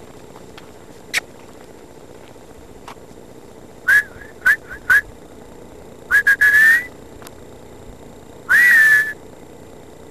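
A series of loud, high whistle-like squeaks, each rising at its start: three quick ones about four seconds in, a cluster ending in a longer one about two seconds later, and a single long one near the end.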